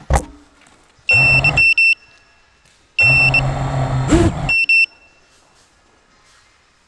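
A sharp knock, then an FPV quadcopter's motors buzzing in two short bursts, the second about twice as long as the first, with high electronic beeps sounding on and off during both.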